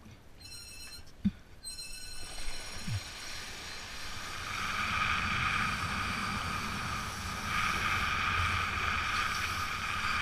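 Steady rush of wind and water on the move, swelling about two seconds in and then holding, with a few short sharp sounds before it.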